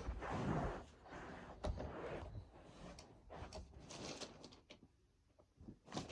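Someone rummaging through drawers or cupboards, with rustling and scattered knocks and clicks. The rustling is loudest in the first second, and it goes quieter shortly before the end.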